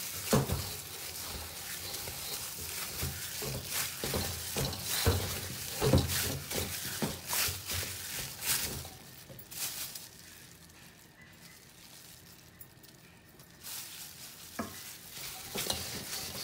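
Soft roti dough being kneaded by hand in a stainless steel bowl: repeated squelches and knocks of the dough and knuckles against the bowl, with rubbing and scraping between them. It goes quieter for about four seconds past the middle, then the knocking resumes.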